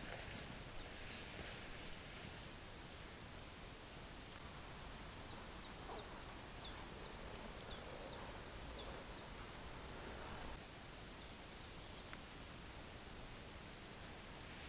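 Faint birdsong: a small bird repeating short, high, down-slurred chirps several times a second, stopping about eleven seconds in, over quiet forest ambience. Footsteps swishing through wet grass in the first couple of seconds.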